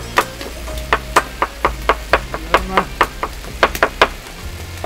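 Chef's knife chopping garlic on a wooden cutting board: quick, even knocks about four to five a second that stop about four seconds in.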